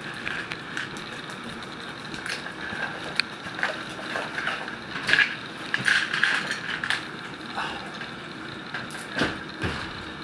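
Small objects handled at a table: scattered clicks, taps and rustles as small plastic containers and a fabric pouch are picked up and packed, over a steady low hiss.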